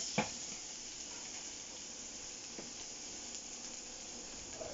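Diced onions frying in hot canola oil in a pan, a steady sizzle. A single light knock sounds just after the start.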